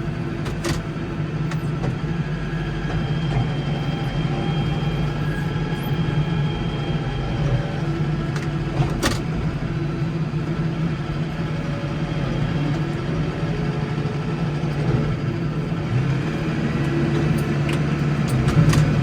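Case 115U tractor's engine running steadily under load, with a few sharp clicks.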